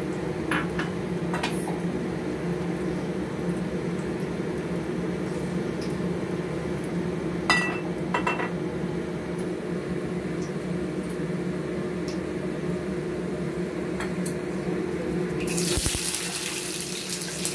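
Steady low hum while the wok heats over the gas flame, with a couple of sharp metal clicks of the spatula about seven and a half seconds in. Near the end, hot oil in the wok starts sizzling loudly as garlic cloves and ginger are tipped in.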